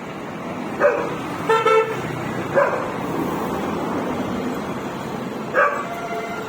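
A dog barking a few times in short, separate calls, with one short, steady-pitched toot about a second and a half in, over steady background noise.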